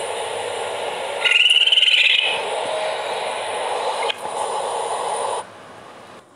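Animal call of Google's 3D AR raccoon played back from a phone recording: a steady hiss, with a short high wavering chitter about a second in that lasts about a second. The hiss drops away near the end.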